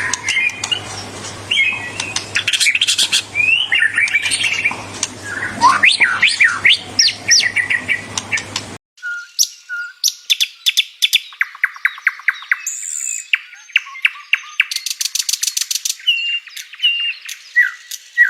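Songbirds singing: whistled, gliding phrases and chirps over a faint low hum. About halfway through there is an abrupt cut to a cleaner recording of fast trills, rapidly repeated notes and chirps.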